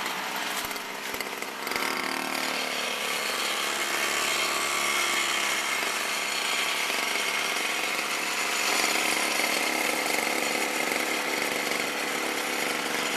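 Power screed's small gasoline engine running steadily, driving the vibration of the long screed blade as it is floated across wet concrete; the engine pitch shifts briefly about two seconds in.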